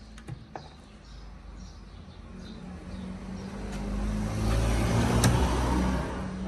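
A road vehicle passing by, its noise swelling to a peak about five seconds in and then fading, over a low steady hum. There are a few light clicks from handling the plastic air intake hose and air filter housing.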